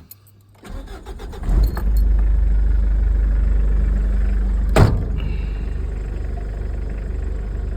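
Mitsubishi Triton ute's turbo-diesel engine starting about a second in, then running steadily. A sharp clunk comes about five seconds in.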